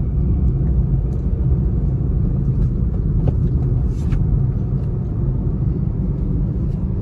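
Steady low rumble of engine and tyre noise inside a car's cabin while cruising in fifth gear, with a few faint ticks.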